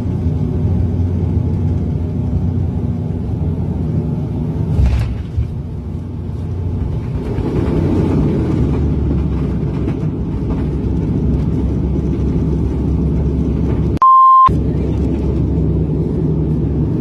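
Steady low rumble, cut off once near the end for half a second by a single pure electronic beep.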